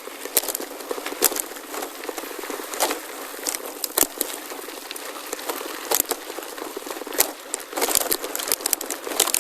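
Crackling, rustling noise picked up by a phone camera carried on a moving gravel bike, with sharp irregular clicks and knocks scattered through it.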